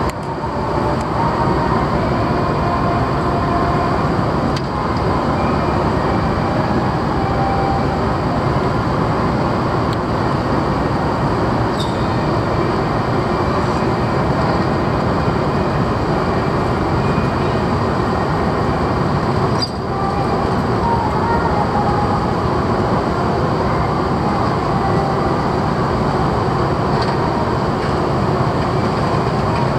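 Steady, loud rumble of the twin-diesel passenger-cargo ferry Salvia Maru running its engines as it pulls away from the pier.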